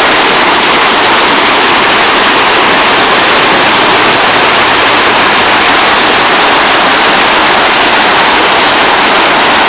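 Fast-flowing spring river water rushing over a shallow stony bed, a loud steady rush of water.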